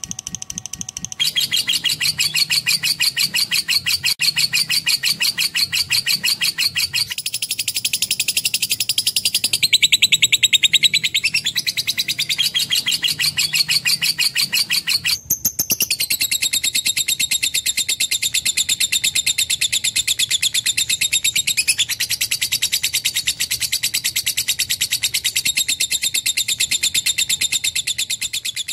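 Lovebird singing a long, unbroken chattering song: a fast, even stream of high chirps that shifts its pitch a few times, with one brief break about fifteen seconds in.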